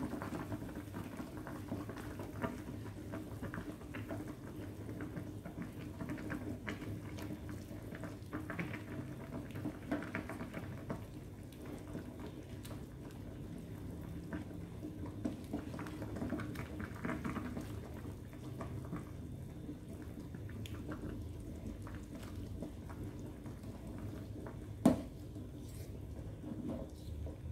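A pot of fish soup simmering with a steady low bubbling, while a ladle stirs through the broth and scrapes the pot with small clinks. About 25 seconds in, the ladle knocks sharply against the pot once, the loudest sound.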